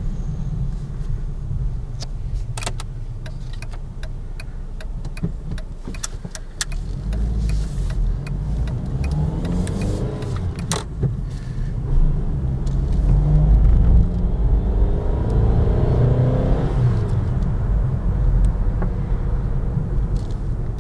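Volkswagen Golf driving, its engine a steady low rumble whose pitch rises twice as it accelerates, once in the middle and again later, with a few sharp clicks along the way.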